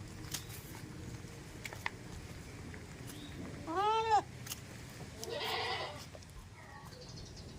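A goat bleating once, a short high call whose pitch rises and then falls, about four seconds in. A rougher, noisier sound follows a second later, with faint scattered clicks throughout.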